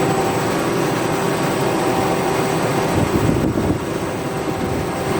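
A machine engine running steadily, with a constant hum under a broad noise; it cuts off abruptly at the end.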